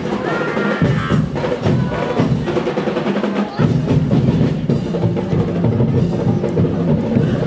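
Drum-and-percussion music playing a fast, driving beat for a street dance, with drums and sharp wood-block-like knocks.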